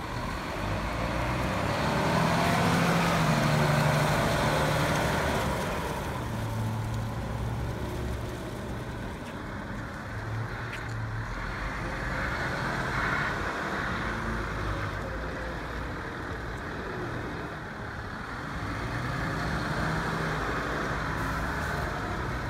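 Volvo L150H wheel loader's diesel engine running as the machine drives and turns, revving up about two seconds in, easing off, and rising again near the end.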